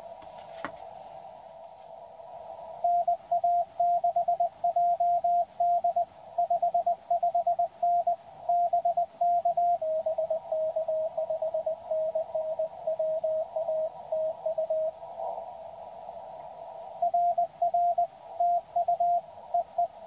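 Morse code (CW) tones from a ham radio transceiver on 40 meters, keyed on and off over the hiss of a narrow CW filter. Keying at one pitch gives way, about ten seconds in, to slightly lower-pitched keying from a second station, and the first pitch returns near the end. A few sharp clicks come right at the start.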